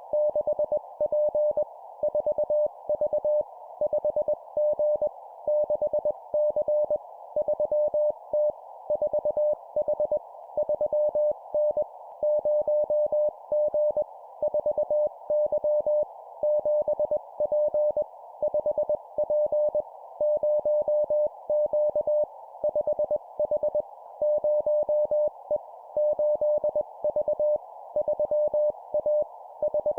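Morse code (CW) sent at 20 words per minute: a single mid-pitched tone keyed on and off in dots and dashes, in short groups of two-character words separated by gaps, over a steady band of hiss.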